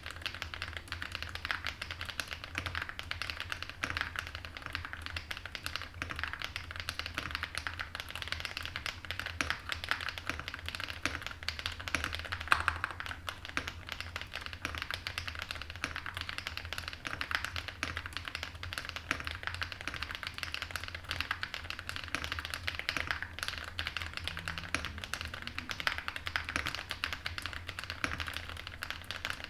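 Continuous fast typing on a zoomTKL mechanical keyboard with an aluminum plate and stock Akko Snow Blue Grey switches: a dense run of keystroke clicks with one louder stroke about halfway through.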